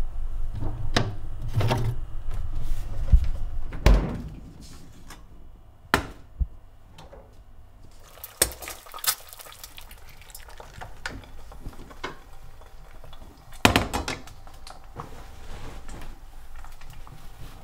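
Kitchen handling sounds from a fridge and a frying pan with dishes: scattered knocks, clicks and clatters, with a low rumble in the first few seconds, a loud knock about four seconds in, a quick run of clicks around nine seconds and another loud knock near fourteen seconds.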